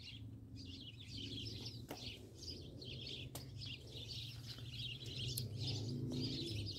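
Small birds chirping in many quick overlapping calls, over a steady low hum, with a few faint clicks.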